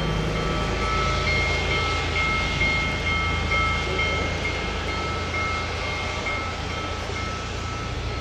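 Union Pacific Big Boy 4014, a four-cylinder articulated steam locomotive, running under power as it approaches, a steady heavy rumble. From about a second in, a high ringing tone with short breaks sits over it.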